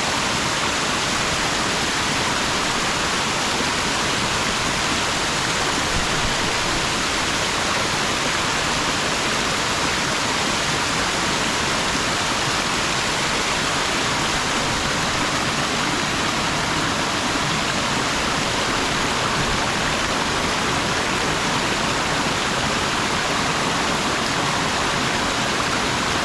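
Waterfall in the rainforest: a loud, steady rush of water pouring over rocks.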